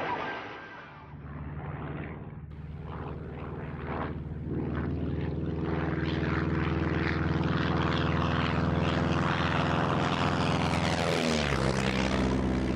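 The de Havilland engine and propeller of a 1932 Arrow Active II single-seat biplane, running steadily in flight with a constant drone. It fades in over the first few seconds, and its pitch and tone shift about a second before the end.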